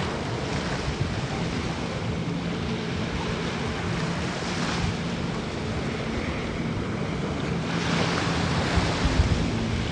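Personal watercraft engine running steadily, pumping water up a hose to power a flyboard, under the hiss of its water jets and surf. Wind buffets the microphone, and the hiss swells near the end.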